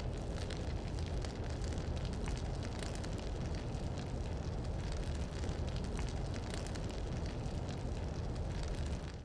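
Fire burning steadily: a deep, low rumble under dense, fine crackling. It cuts off abruptly near the end.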